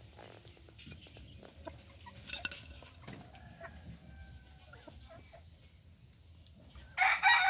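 Flock of ornamental chickens clucking quietly while foraging, with one much louder call from a bird near the end.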